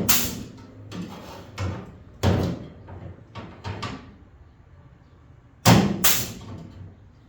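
Spot welder joining the T-top panel seams: a run of sharp metallic clacks and snaps as the welds are made, loudest right at the start and again about six seconds in, with a short low hum around a second in.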